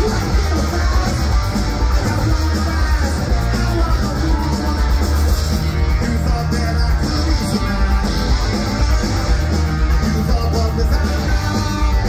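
Garage rock band playing live through a festival PA, heard from the crowd: electric guitars, drums and bass with a singer's voice, loud and continuous.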